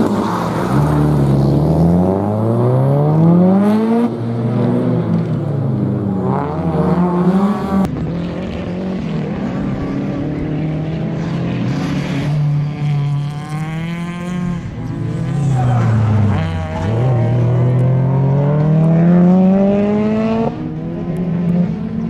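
Subaru Impreza WRX STI rally car's turbocharged flat-four boxer engine driven hard, loud. Its pitch climbs and drops at each gear change, dips about three-quarters through as it slows, then climbs again and drops sharply near the end.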